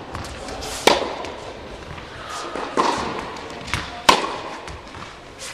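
Tennis ball struck by a racket in a rally, two sharp pops about three seconds apart with lighter ball bounces between. Each one echoes in a large indoor tennis hall.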